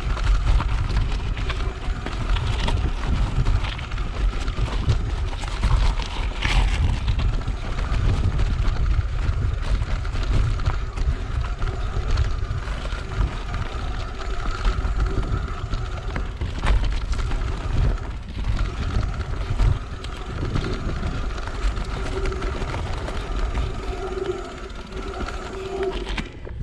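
Mountain bike rolling along a stony gravel track: tyres crunching and the bike rattling over loose rocks, under heavy wind buffeting on the camera's microphone.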